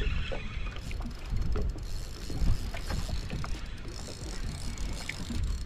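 Wind and water against a small fishing boat, a steady low rumble, with scattered light clicks and knocks of rod-and-reel tackle being worked.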